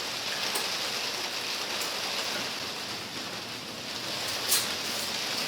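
Heavy rain falling steadily on the roof overhead, with a few small clicks.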